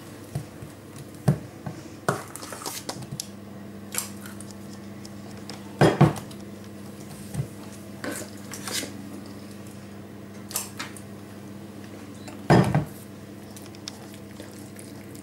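A metal trigger scoop clinks and scrapes against a metal mixing bowl as batter is scooped out and released onto a baking tray. Scattered sharp clicks run throughout, with two louder knocks about six seconds in and again near thirteen seconds.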